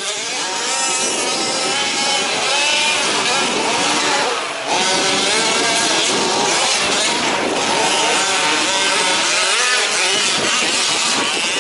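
Several 1/5-scale off-road RC trucks with small two-stroke petrol engines racing, their engines revving up and down over one another, with a brief dip about four and a half seconds in.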